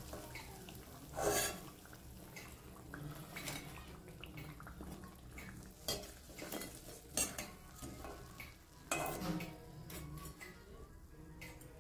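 A perforated steel slotted spoon scraping and clinking against a metal kadai while fried chops are lifted out of the oil. The scrapes and clicks come one at a time, with the loudest about a second in and again near the end.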